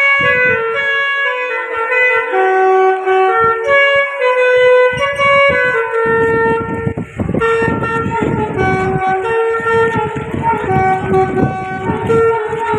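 Bus telolet horn, a set of air horns, playing a tune of held notes that step from one pitch to the next. From about six seconds in a low rumble runs underneath.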